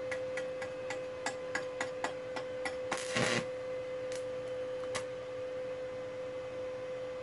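Stick-welding electrode tapping and scratching on a steel plate to strike an arc: a run of sharp ticks, about four a second, then a brief crackle a little after three seconds as the arc catches for a moment and goes out, and two more single ticks. A steady hum runs underneath.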